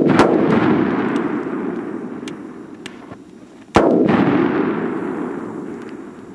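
Homemade flash-powder firecrackers going off: a sharp bang right at the start and another about four seconds in. Each is followed by a long echo that dies away over a few seconds.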